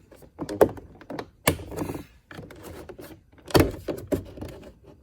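Plastic door trim being pried off with a plastic wedge: a string of sharp clicks and knocks as its retaining clips let go, the loudest about one and a half and three and a half seconds in.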